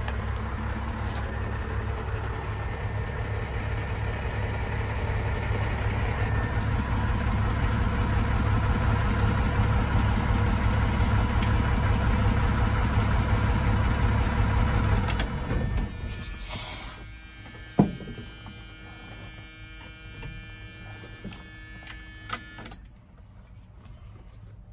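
1989 12-valve Cummins 5.9-litre inline-six diesel idling steadily, then shutting off about 15 seconds in. A single sharp click comes a couple of seconds after it stops.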